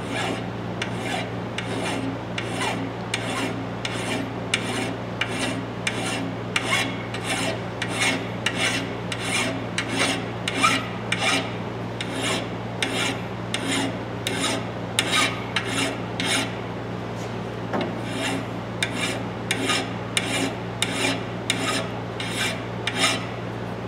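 Fine flat hand file rasping back and forth on the steel claw of a Bostitch hammer, in steady strokes about one and a half a second, taking down a burr on the claw. The strokes stop just before the end.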